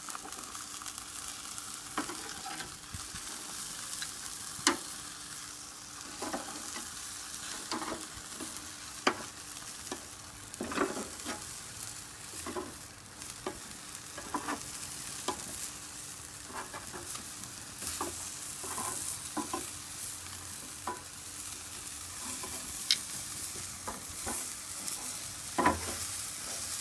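Chicken wings sizzling on a gas grill over open flame, with metal tongs clicking and scraping on the grate as the wings are picked up and set down again.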